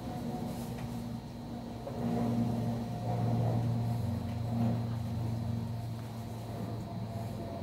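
Anova Precision Pro sous vide circulator running in its water bath, holding it at about 60 °C: the pump motor gives a steady low hum that grows a little louder about two seconds in.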